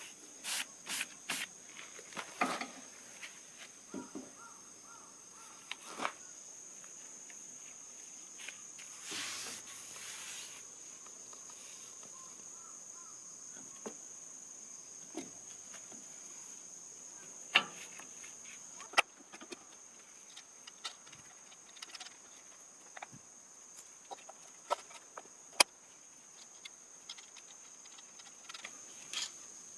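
Scattered clicks, taps and knocks of hand work on the mixer, over a steady high insect drone. About nine seconds in there is a hiss lasting about a second and a half.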